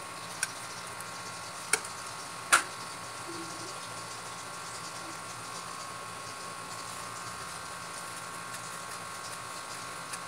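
A steady mechanical hum with a faint whine underneath, and a few sharp clinks in the first three seconds, the loudest about two and a half seconds in: ceramic plates and bowls knocked as hands work among them.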